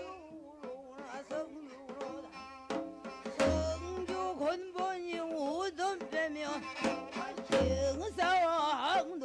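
Jindo ssitgim-gut shaman ritual music: a wavering, heavily ornamented melody over sharp hand-drum strokes. A low gong-like boom starts about every four seconds, about a third of the way in and again near the end.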